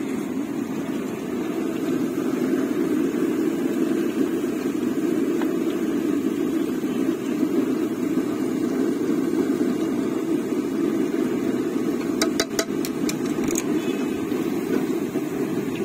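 Potato fingers deep-frying in a wire basket of bubbling oil at a street fryer, under a steady low roar. About twelve seconds in comes a quick run of metallic clinks as the stirring rod strikes the basket.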